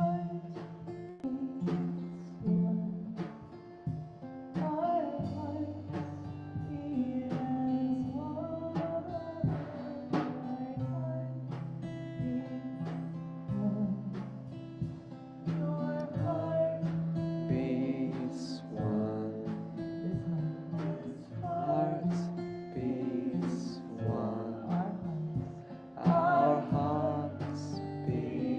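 Acoustic guitar strummed and picked in a slow song, with a voice singing over it in the second half.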